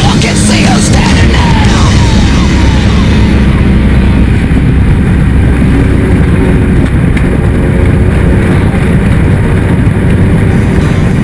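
Loud, aggressive heavy rock music, with a race vehicle's engine running underneath.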